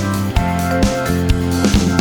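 Background music: an upbeat track with guitar and a steady drum beat, about two beats a second.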